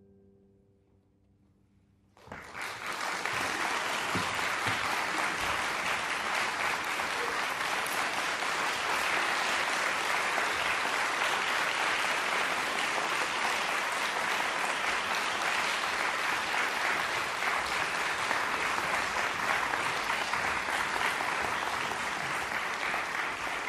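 Audience applauding: after about two seconds of near silence as the final chord fades, dense, steady clapping breaks out suddenly and keeps on, easing slightly near the end.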